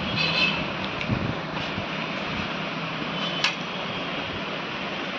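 Lenovo ThinkCentre desktop PC's cooling fans running steadily as it powers on with one RAM stick removed, now booting normally. A single faint click about three and a half seconds in.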